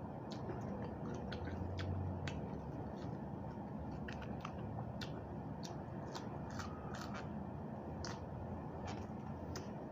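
Person chewing raw vegetables with the mouth close to the microphone: scattered small crisp crunches and mouth clicks over a steady low background hum.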